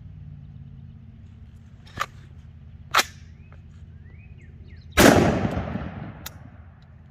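Two sharp metallic clicks, then a single shot from a Ruger SFAR .308 semi-automatic rifle about five seconds in, its report fading over about two seconds, then one more click. The rifle ejects the spent case but fails to pick up the next round, so it does not cycle for a follow-up shot.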